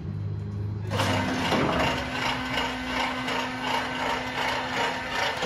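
A LeBlond Regal servo-shift engine lathe's geared head and feed start running about a second in, at a slow speed. They make a steady, busy clatter over a constant hum, then stop abruptly.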